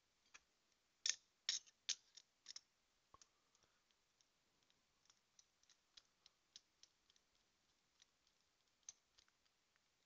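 Small sharp metal clicks from a reassembled Abus Rock 83/55 padlock being handled, with a cluster of louder clicks between about one and two and a half seconds in. Lighter ticks follow as the plug is turned with a screwdriver in the keyway.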